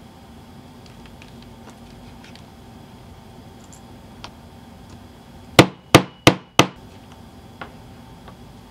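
Four quick hammer blows on a metal snap setter, about a third of a second apart, setting a snap fastener into a leather strap on a metal anvil. Faint clicks of metal snap parts being handled come before the blows.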